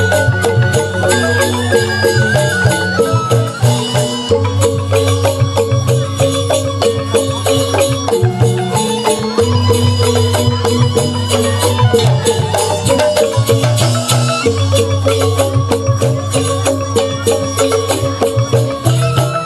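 Balinese bamboo gamelan playing a tabuh petegak instrumental piece: bamboo-tube xylophones struck in fast, dense patterns, with bamboo flutes holding long melody notes above and a steady low bass part that drops out briefly a few times.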